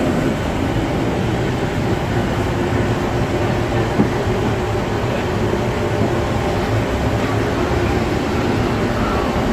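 Steady mechanical rumble of airport ramp machinery and ventilation heard in a jet bridge at a parked airliner's door, with a single knock about four seconds in.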